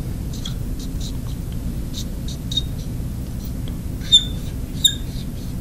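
Marker writing on a glass lightboard: a run of short scratchy strokes, with two sharper high squeaks of the tip on the glass about four seconds in and again near the end. A steady low background hum runs underneath.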